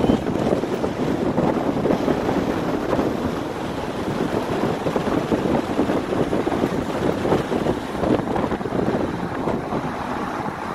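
Wind buffeting the microphone over a steady, even rumble, with no distinct events.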